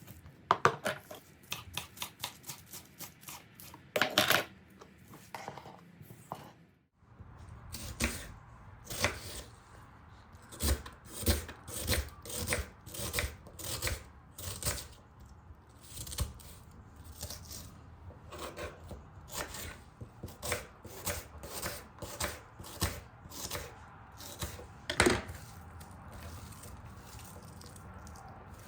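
Knife chopping food on a cutting board: quick, rapid strokes at first, then after a brief break a slower run of strokes about two a second.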